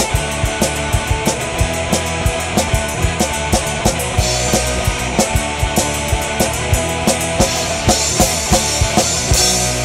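Backing music with a fast, steady drum beat.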